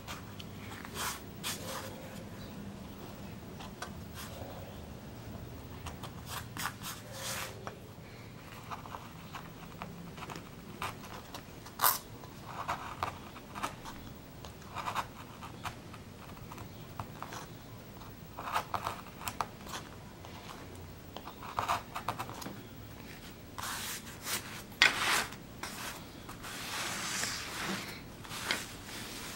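Hand carving gouge cutting into a plywood woodcut block: short, irregular scraping strokes as the blade lifts out slivers of wood, with sharper clicks now and then. A longer rustling sweep comes near the end.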